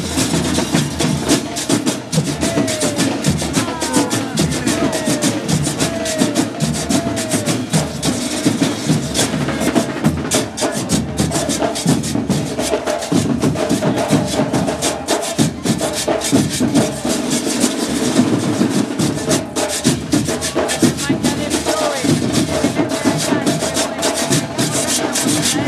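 Marching band percussion playing a fast, steady rhythm: metal güiras scraped along with drums being struck.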